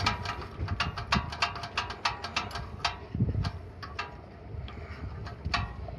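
Carburetor throttle lever and linkage on a Yamaha snowblower engine being worked back and forth by hand, with the engine off, giving a run of irregular light metallic clicks. The throttle valve had been sticking open and holding the engine at high idle; worked loose with lubricant, it now moves much more smoothly.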